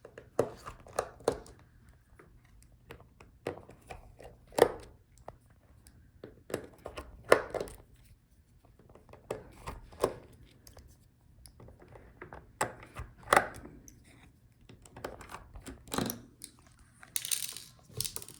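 Small screws being taken out of a laptop touchpad and the parts being handled: scattered clicks and light taps of the screwdriver, screws and plastic. A short tearing sound comes near the end.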